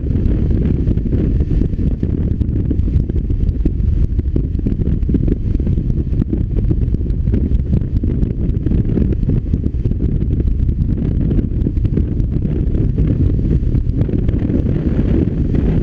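BMW R1200RT's boxer-twin engine running steadily under way, a low rumble mixed with wind rushing over the microphone.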